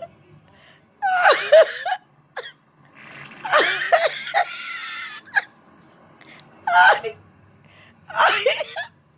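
A person laughing hard in about five breathless, high-pitched bursts, squealing and wheezing, with short gasping pauses between them.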